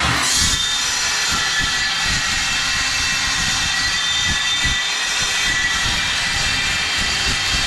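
Angle grinder switched on and running steadily on steel, a loud high whine over a hiss.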